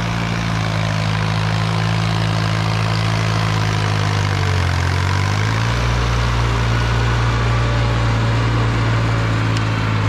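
A 15-horsepower compact tractor's engine running steadily while it pulls a rear rotary tiller through the soil. Its note dips briefly about four to five seconds in, then comes back up.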